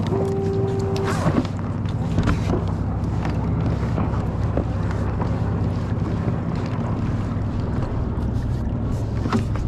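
Boat engine running steadily with a low hum, with a short steady whine for about a second at the start and scattered light knocks and clicks.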